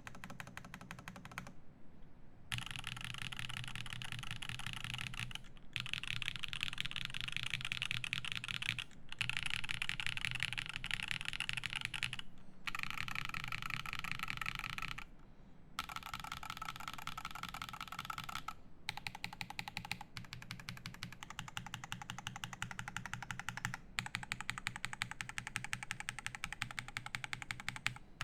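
Fast typing on a GHS.RAR mechanical keyboard with lubed Zaku switches, an aluminium plate and GMK keycaps: a dense stream of key clacks, broken by short pauses every few seconds.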